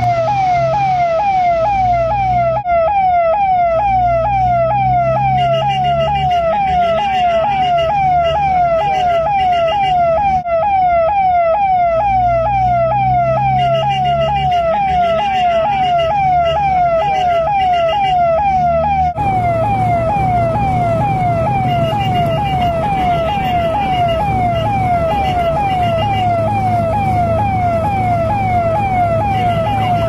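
Indian ambulance electronic siren sounding a fast, repeating falling wail, roughly two sweeps a second, over a low rumble. The background shifts abruptly a few times where recordings are spliced, but the siren pattern continues.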